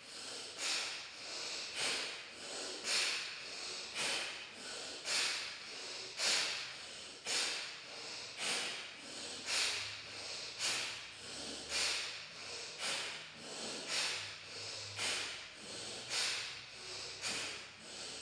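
Kapalbhati breathing through alternating nostrils: a sharp, forceful nasal exhale about once a second, each followed by a softer passive inhale through the other nostril, in a steady rhythm.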